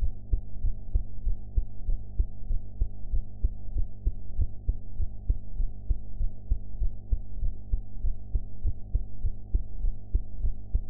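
A woman's heart beating steadily after a meal: an even, regular run of soft low thumps, with a steady low hum underneath.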